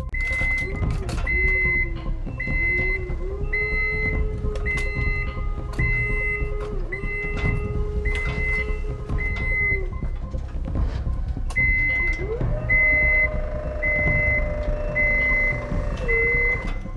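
Toy police station's battery-powered car lift running, a motor whine that shifts in pitch under load, with an electronic warning beep about twice a second. It runs for about ten seconds, stops, then runs again for about five seconds and cuts off.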